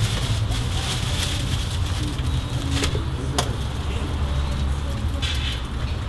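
Steady low rumble of background noise at a street food stall, with two sharp clicks a little past the middle.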